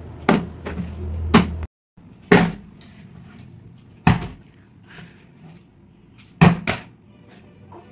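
A plastic bottle tossed in a bottle-flip game lands on a wooden tabletop with short, sharp knocks, several times and a few seconds apart. Near the end it lands with a quick double knock.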